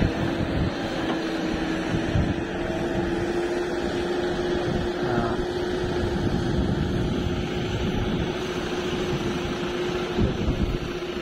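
Diesel engines of a JCB 3DX backhoe loader and a tractor hauling a loaded earth trolley, running steadily with a constant drone.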